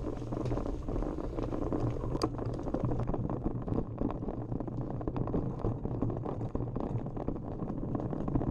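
Mountain bike descending a rough dirt trail: a continuous rattle and rumble of tyres and bike over the ground, full of small clicks, with one sharper click about two seconds in.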